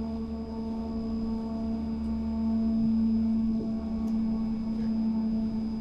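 Steady machinery hum aboard a car ferry. It is one strong low droning tone with fainter higher tones and a low rumble beneath, unchanging throughout.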